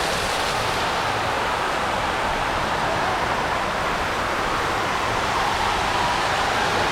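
Heavy storm rain falling, a steady even hiss.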